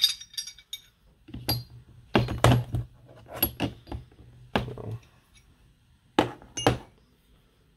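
Steel air hammer bits clinking against one another and knocking as they are set into a plastic bit holder and picked up again: a string of separate clicks and thunks with short pauses between.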